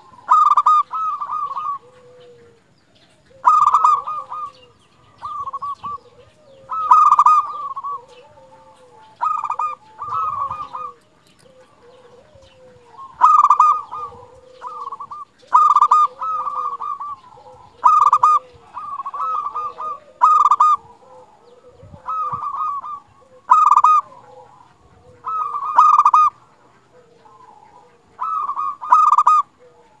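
Zebra dove (perkutut) singing: short phrases of quick cooing notes repeated every one to three seconds, each phrase with a lower trailing coo.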